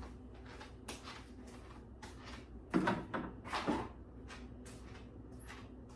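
Faint knocks and clicks of someone moving about off-camera, with two louder clunks about three seconds in, half a second apart, over a steady low room hum.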